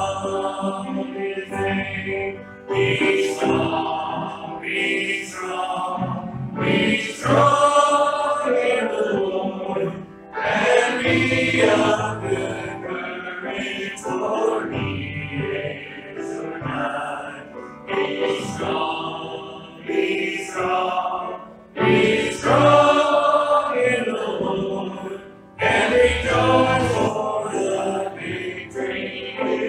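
Church congregation singing a hymn together, in phrases with short breaks between lines.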